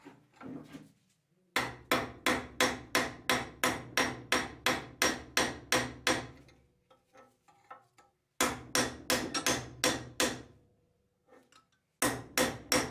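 Hammer striking the steel tang of a kitchen knife laid on the flat of a metal bench vise, in quick runs of sharp ringing blows about four a second. There are three runs: a long one starting about a second and a half in, a shorter one past the middle, and a third beginning near the end.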